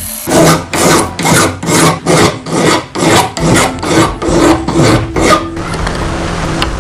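Hand file rasping back and forth across the edge of a steel bread-cutter blade clamped in a vise, about a dozen even strokes at a little over two a second. The filing stops about five and a half seconds in, and a quieter steady rubbing follows.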